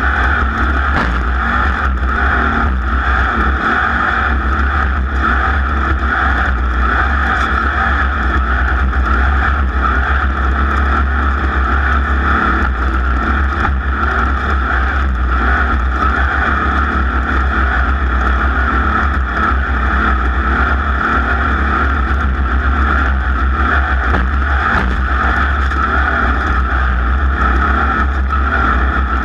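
Racing engine running hard at steady high revs, heard from on board during a race lap.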